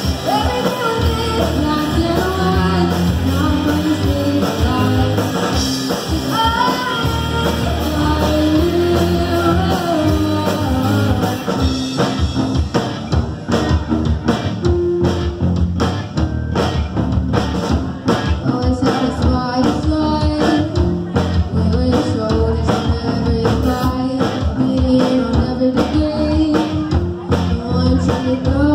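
Live rock band playing: a female lead singer over electric guitars, bass and drums. About twelve seconds in the singing drops away for an instrumental stretch driven by steady drum hits, and the voice comes back near the end.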